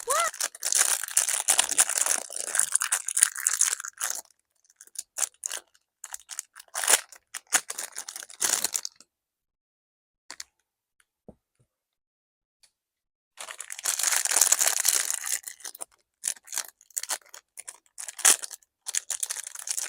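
Packaging being torn open and crinkled in irregular rustling bursts, with a quiet pause and a few faint clicks in the middle.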